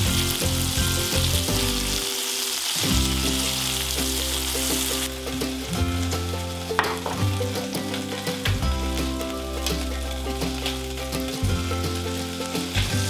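Beef chunks sizzling as they brown in hot vegetable oil in an enameled cast-iron pot. The sizzle weakens about five seconds in, and light clicks and taps of tongs follow as the browned pieces are lifted out and a fresh batch is laid in.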